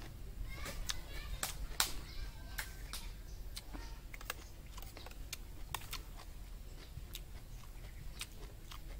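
Eating sounds: scattered, irregular clicks of a metal spoon against a plate, with mouth noises of chewing, over a low steady rumble.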